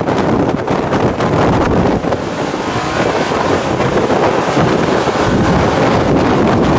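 Strong wind buffeting the microphone: a loud, continuous rushing roar with ragged flutter.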